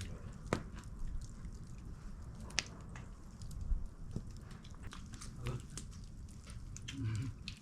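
People eating close by: chewing and biting sounds, with a few sharp clicks scattered through, over a low background rumble and faint voices.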